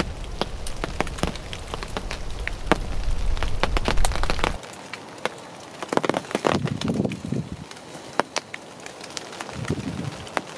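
Raindrops ticking irregularly on the fabric of a pop-up hunting blind, over a low rumble that cuts off abruptly about halfway through; the scattered drip ticks continue after that.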